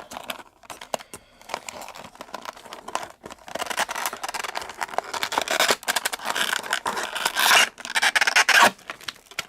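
Blind-box packaging being worked open by hand: a run of scraping, rubbing and rustling of cardboard and wrapping, loudest near the end.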